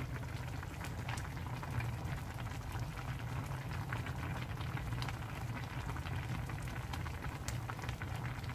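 A pot of jeon-jjigae (stew of leftover jeon with sliced chillies) bubbling at a steady boil: a constant low rumble under many small pops of bursting bubbles.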